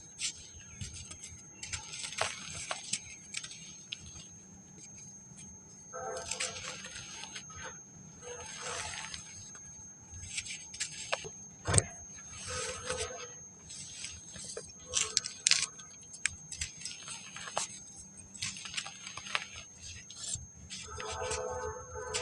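Dry packed sand crumbling and breaking apart in irregular crunchy bursts, with sharp cracks as pieces snap, one loudest about twelve seconds in.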